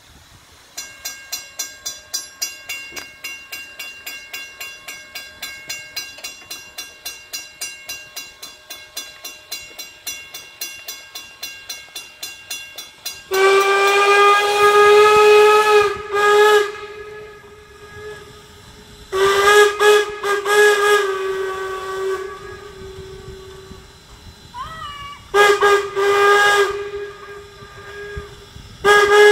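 A railroad crossing bell rings steadily at about three to four strokes a second. Then Strasburg Rail Road No. 475, a 4-8-0 steam locomotive, sounds its steam whistle for the grade crossing: a long blast, a short one, another long one, then two short blasts, and one more starting at the end.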